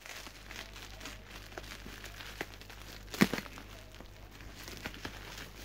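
Bubble wrap and plastic packing tape crinkling and crackling as a parcel is pulled open by hand. A single louder, sharp crack comes about three seconds in.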